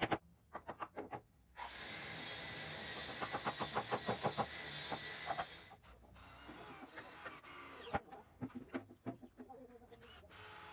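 Cordless drill running for about four seconds, driving a screw into the corner joint of a wooden window frame. A string of quick clicks comes partway through.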